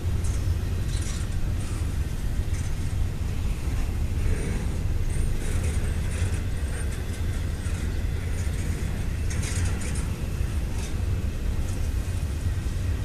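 Double-stack intermodal freight train rolling past, a steady low rumble of wheels on rail, with short high-pitched squeaks now and then, the strongest about nine and a half seconds in.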